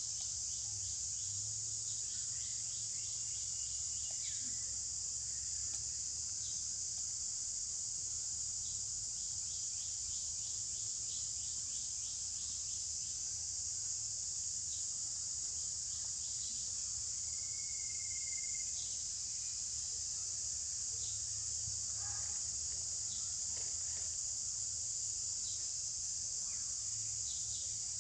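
Steady high-pitched drone of an insect chorus, with a few faint bird chirps scattered through it.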